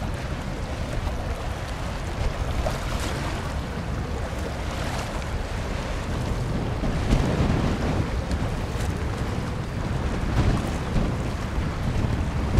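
Wind buffeting the microphone in irregular gusts, over the steady hiss of choppy sea water.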